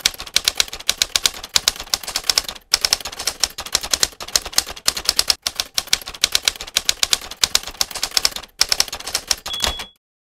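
Manual typewriter keys clacking in quick runs, with a few brief pauses, as a line of text is typed. A short high ring sounds just before the typing stops.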